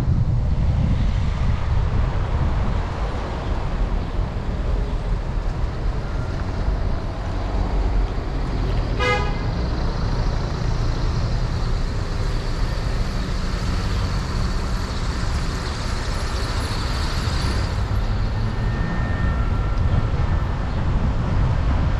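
A car driving through city traffic on a wet street: a steady low rumble with road hiss, and one short car-horn beep about nine seconds in.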